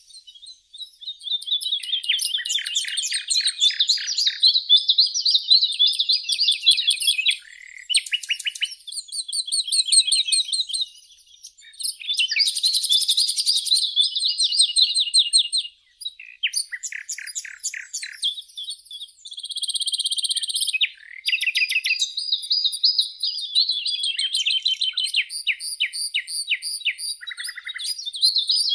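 Songbirds singing: long phrases of rapid chirps and trills follow one another, broken by short pauses.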